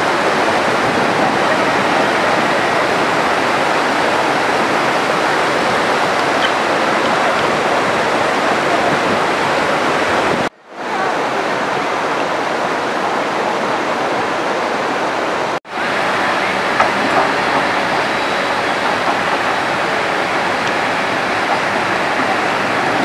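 Floodwater of a swollen mountain river rushing over rocks: a loud, steady roar that cuts out twice for a moment, about ten and fifteen seconds in.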